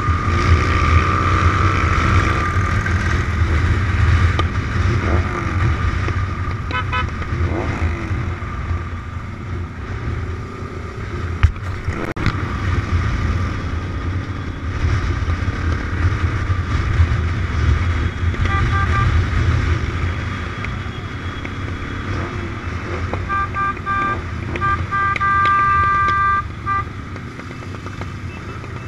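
Motorcycles running in a group ride, a steady engine hum throughout. Horns toot in quick runs of short beeps: once about seven seconds in, again a bit past halfway, and the longest run near the end.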